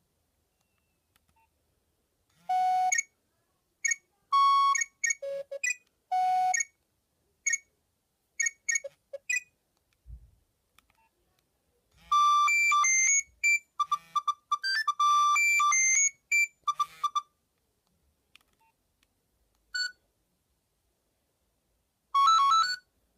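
Nokia 3510 ringtone melodies playing from a Nokia 7100 Supernova's loudspeaker: short phrases of electronic notes, separated by silent pauses. There is a low thump about ten seconds in.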